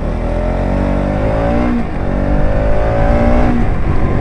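Bajaj Pulsar NS200's single-cylinder engine pulling under acceleration: its pitch rises, drops with a gear change about two seconds in, rises again, then eases off near the end.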